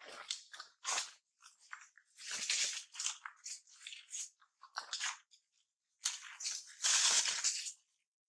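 Irregular crunching and rustling from long-tailed macaques chewing fruit and shifting over dry fallen leaves, with two longer, louder stretches of crunching.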